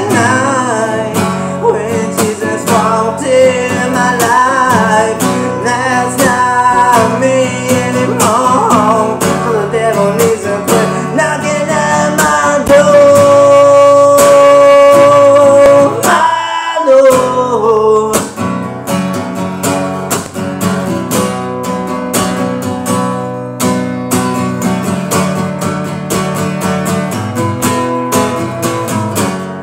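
Acoustic guitar strummed, with a man's voice singing a wavering melody over it and holding one long note about halfway through. After that the strumming carries on alone, slowly getting quieter.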